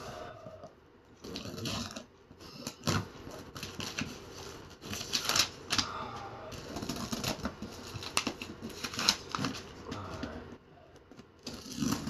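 Cardboard box being opened and its packing handled: irregular scraping, tearing, clicks and rustling of cardboard and paper.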